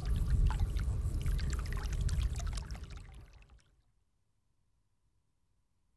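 Water pumped by a solar submersible pump pouring and splashing into a water reservoir, fading out about three and a half seconds in.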